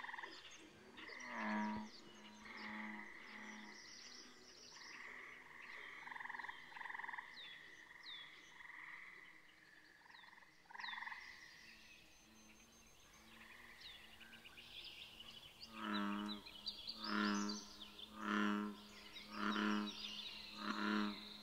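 A chorus of frogs croaking, with several calls overlapping, some higher and some lower. Near the end five loud, low croaks come about a second apart.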